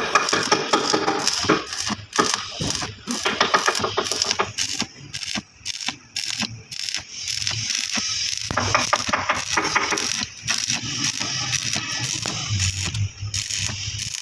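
Heavy metalwork on steel: a dense run of irregular sharp clicks and clanks over a noisy hiss, with a low hum coming in during the second half.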